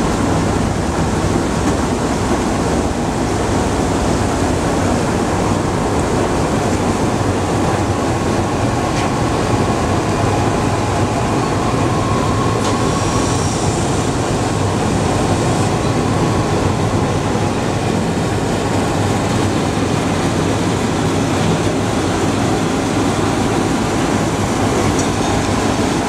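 Industrial apple washing machine running steadily: its brush rollers and spiral screw conveyor turning apples under spray nozzles, a constant dense mechanical rumble mixed with spraying water.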